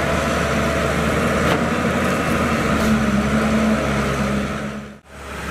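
Diesel engine of a Caterpillar tracked excavator running steadily while it works in floodwater. The sound dips out briefly about five seconds in.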